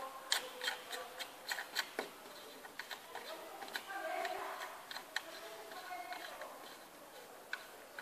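Sharp clicks and light knocks of hand work on a shower cabin's panel and fittings: a quick run of them in the first two seconds, then more scattered.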